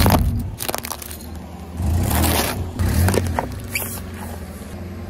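Car tyre rolling over hollow plastic toy balls and crushing them, with crunching, several sharp cracks and a low rumble of the car underneath.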